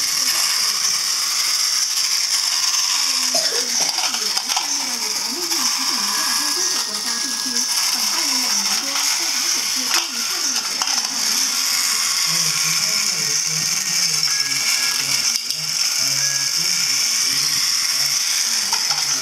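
Battery-powered TOMY toy train running on plastic track: its small electric motor and plastic gearbox whir steadily and evenly.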